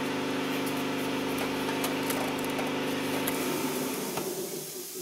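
A steady machine hum at an even pitch that wavers, winds down and fades out about four seconds in.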